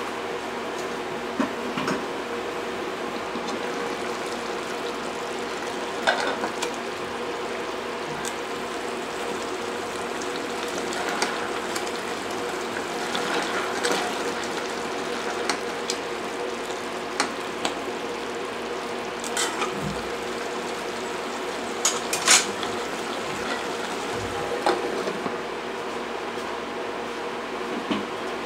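A metal ladle clinks against a stainless cooking pot and its lid now and then while sauce is spooned over a braising pork hock, the loudest clink about three-quarters of the way through. Under it runs a steady hum and hiss with a fan-like sound.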